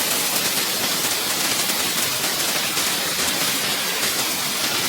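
Hailstorm: hail and rain pelting down steadily, a dense, even hiss of countless small impacts.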